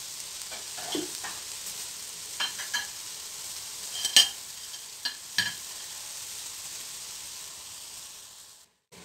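Instant noodle block cooking in a hot wok: steady sizzling hiss with a few sharp pops and clicks, cutting off suddenly near the end.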